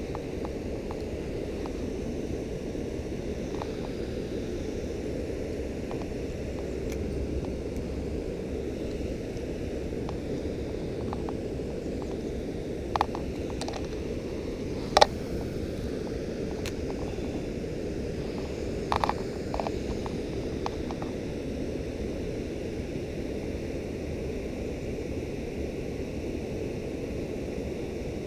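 A steady low rushing noise, with a few short sharp clicks partway through, one louder than the others.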